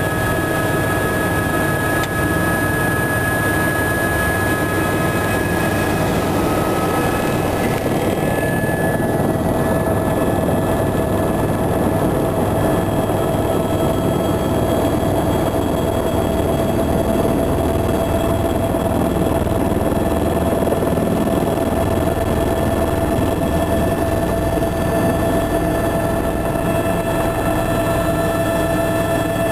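Tour helicopter's turbine engine and rotor heard from inside the cabin: a loud, steady drone with a constant high whine.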